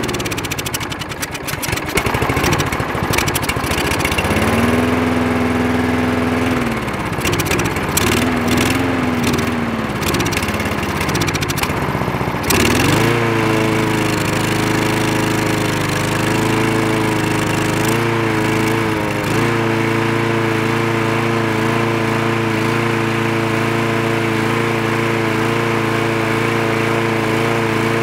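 Craftsman lawn mower's Briggs & Stratton engine firing briefly and dying away twice, then catching about halfway through and running. Its speed wavers for a few seconds, then settles into a steady run.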